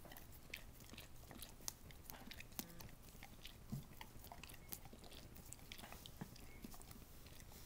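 A dog licking yogurt from a spoon: faint, irregular wet tongue clicks and smacks, a few each second.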